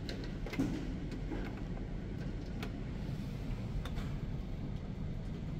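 Schindler passenger lift in motion: a steady low rumble of the car travelling in its shaft, with a few light clicks.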